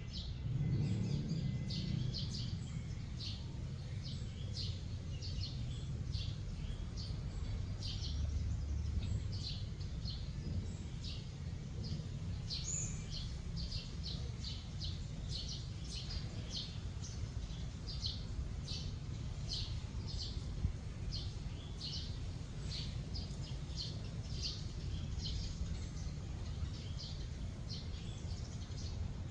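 Small birds chirping over and over, several short high chirps a second, over a steady low rumble.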